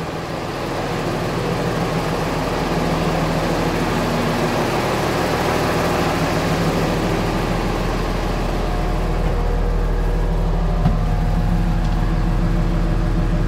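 O&K L 25 wheel loader's diesel engine running steadily while the steering is turned to the other end stop to bleed air from the freshly resealed steering cylinder. The low hum grows stronger in the second half.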